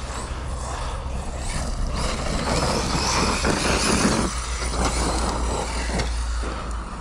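Arrma Fireteam radio-controlled car running around a dirt track: motor and drivetrain whirring with the tyres working the dirt, swelling to its loudest around three to four seconds in.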